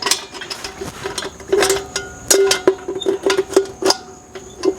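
Sheet-metal ash catcher of a Weber kettle grill knocking and clicking as it is handled and clipped into place under the bowl, a dozen or so sharp metallic taps with a brief ringing after several of them.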